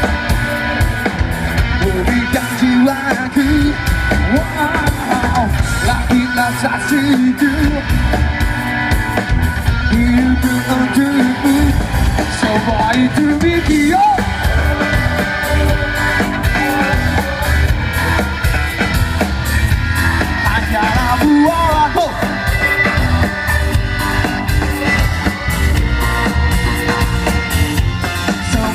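Live rock band playing through a concert PA: a male singer's voice over electric guitars, bass and a drum kit, loud and unbroken. Heard from within an outdoor crowd on a phone's microphone.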